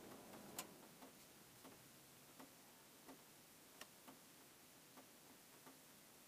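Near silence with faint, regular ticks about every three-quarters of a second.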